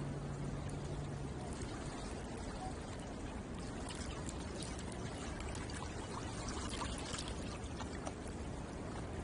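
Shallow water lapping and trickling at the shore edge, with small splashes and drips scattered through. A low steady hum fades out about a second and a half in.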